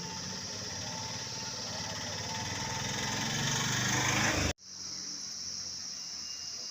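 An engine running with a steady high hiss over it, growing louder for about four seconds before cutting off abruptly, then going on again at a lower level.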